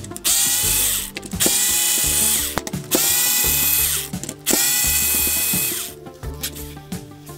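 Cordless screwdriver running in four short bursts of about a second each, its motor whine rising as each burst starts and falling as it stops, as it backs out the small screws of a battery pack's plastic housing. Background music plays underneath.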